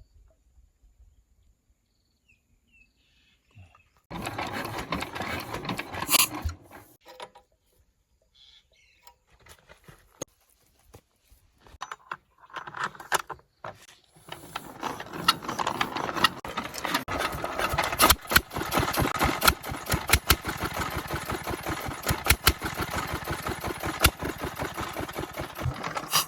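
24 HP Chinese diesel engine running with a rapid, even knocking beat. A shorter burst of the same noise comes about four seconds in, and from about fourteen seconds the engine runs steadily and loudly.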